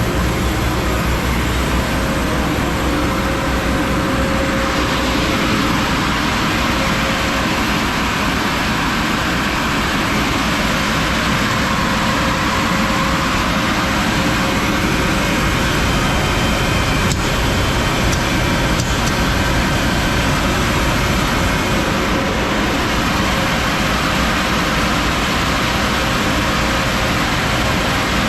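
A two-head 36-inch wide belt sander running under power with a loud, steady machine noise. The sound gets a little harsher about five seconds in.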